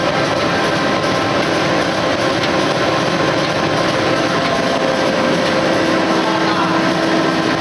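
A Botheven NRP-series stack-type flexographic printing machine running as it prints a roll of woven polypropylene fabric: a loud, steady mechanical din with a few constant hums.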